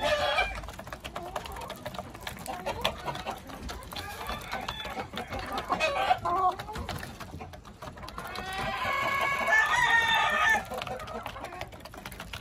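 Possum Sweater gamefowl hens clucking while pecking feed from a trough, with rapid tapping of beaks on the trough. About eight and a half seconds in, a rooster crows once, a long call of about two seconds.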